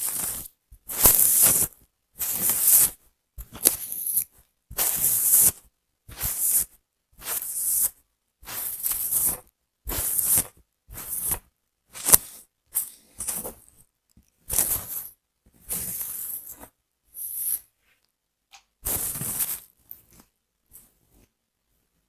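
Hair being worked by hand or tool: a run of short rustling strokes through hair, roughly one a second, each separated by a silent gap.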